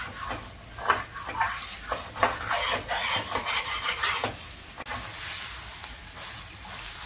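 Slotted steel spoon scraping and stirring a thick onion and ginger-garlic paste around a stainless steel kadai, the paste sizzling in ghee on high flame. The scraping strokes come irregularly over the first five seconds, then a steady sizzle remains.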